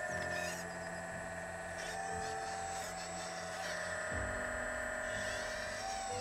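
Hydraulic pump motor of a full-hydraulic RC Volvo excavator, a steady electric whine that steps down and up in pitch several times as the load on the hydraulics changes.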